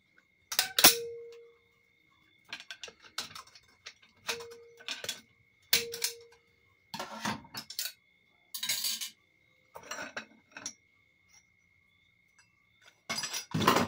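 Steel clutch plates from a 4L60E's clutch packs clinking and clattering against each other and the bench as they are handled. There are a dozen or so short metallic knocks, a few with a brief ring, the loudest about a second in and another cluster near the end.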